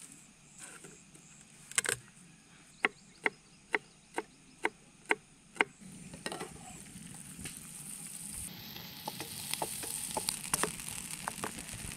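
A run of about seven sharp clicks, roughly two a second, then food frying on a camp stove, its sizzling growing steadily louder.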